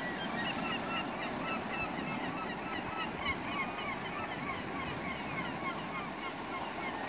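Many seabirds calling over the sea, a dense chorus of short, high, repeated calls overlapping one another, over a steady rush of waves and wind.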